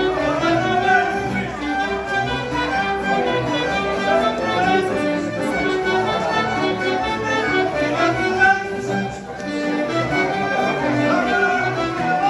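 Portuguese folk band playing a contradança dance tune, a lively melody over a steady beat.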